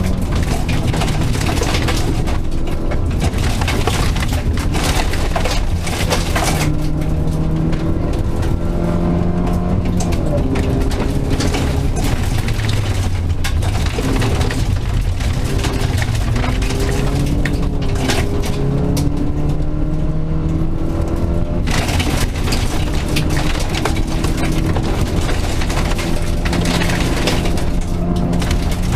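Rally car engine heard from inside the cabin on a gravel stage, revving up and dropping back over and over as the driver accelerates, shifts and brakes, with gravel rattling against the car's underside.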